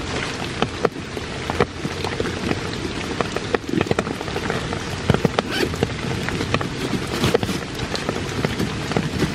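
Steady rain falling, with many sharp ticks of close individual drops striking.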